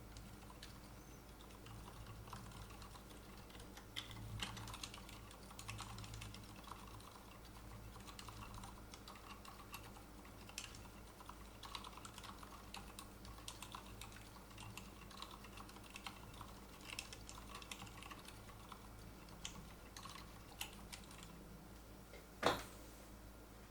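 Typing on a Keychron Q3 keyboard fitted with Kailh Deep Sea silent switches and AKKO Macaw ASA keycaps: a quiet, irregular stream of soft key presses, with one louder knock about a second before the end.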